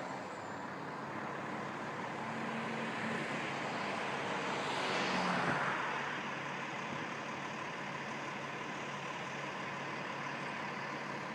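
Road traffic noise: a steady hum of vehicle engines and tyres, with one vehicle passing and getting louder about five seconds in before it fades.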